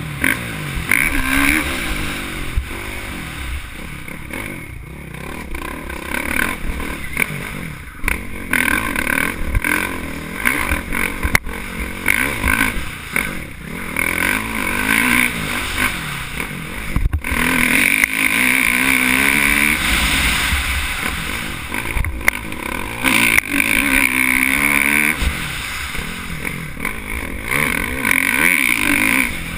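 Motocross bike engine revving up and down as it is ridden, its pitch rising and falling over and over, with a few sharp knocks.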